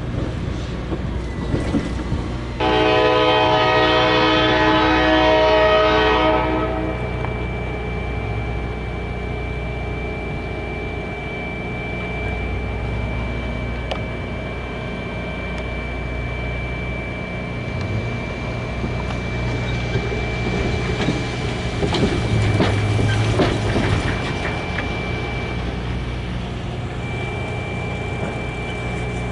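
Diesel switcher locomotive's air horn sounding one long blast about two and a half seconds in, lasting about four seconds, over the steady rumble of its diesel engine. Later the train rattles and clanks for a few seconds as the cars move.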